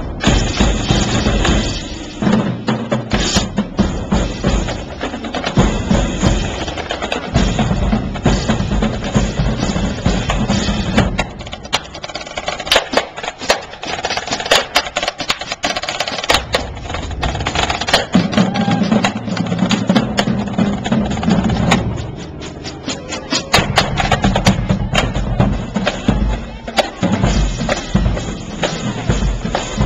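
Marching drum line playing: rapid snare drum rhythms and rolls with crash cymbals clashing. The heavy low part drops out for a few seconds midway, leaving lighter drumming, then comes back in full.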